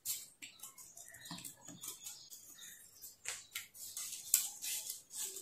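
Paper and thin cardboard number flaps being handled and flipped over on a hand-made chart: faint, irregular soft rustles and light taps.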